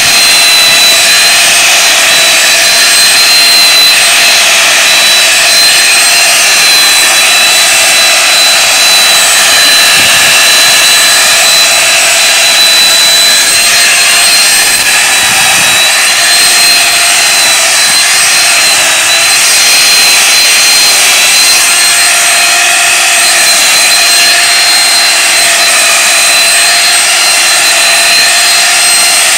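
Corded Craftsman electric chainsaw running steadily with a loud, high whine, its chain tip scraping lines into sheet ice.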